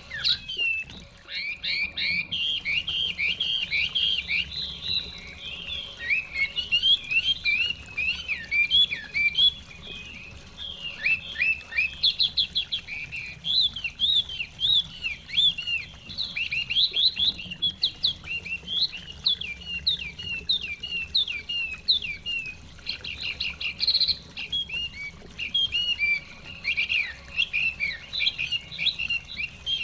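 Chinese hwamei (họa mi) singing a long, fast, varied song of rapid repeated and sliding whistled notes, hardly pausing.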